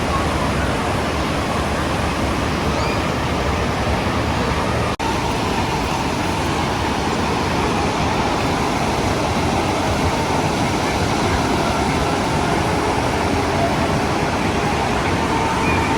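Steady rushing of the Bekhal waterfall, a dense even noise with a brief dropout about five seconds in.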